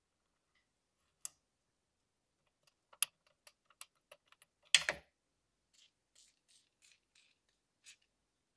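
Small metal clicks and clinks of a hex key working socket-head screws out of an old lathe's slide block, with one louder metallic clatter about five seconds in. A few soft scratchy rubs follow, then a single click near the end.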